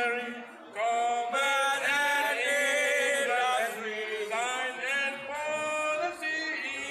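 A group of men singing a school song together into a microphone, slow held notes on the line "Science or Policy", with a short pause for breath about half a second in.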